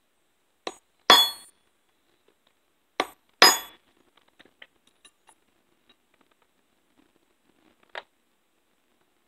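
Hammer peening the rivets of a chainsaw chain's tie strap, metal on metal: two pairs of strikes, a light tap then a hard ringing blow, about a second in and again about three seconds in. Faint small clicks follow, with one sharper tick near the end.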